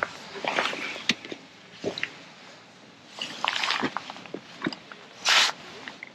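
Close handling noise from fishing tackle: scattered clicks, wet squishing and rustles as a wet landing net is handled and put down. About five seconds in there is one short, loud rustle, the loudest sound here.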